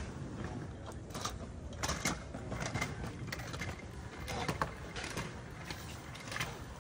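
Skateboard rolling on concrete out of sight, a steady low rumble broken by scattered sharp clicks and clacks from the wheels and board.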